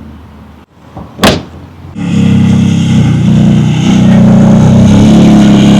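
A sharp thump about a second in, then the Porsche 718 Spyder RS's 4.0-litre naturally aspirated flat-six starts about two seconds in and runs steadily and loudly.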